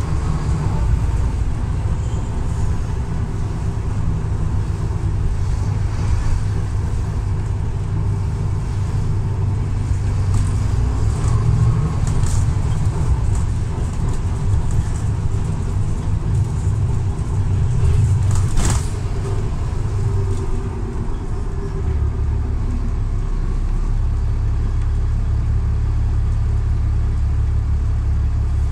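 Bus diesel engine running and the body rattling, heard from inside the lower deck while riding in traffic. There is one sharp knock about two-thirds of the way through, and for the last several seconds the engine settles to a steadier low drone.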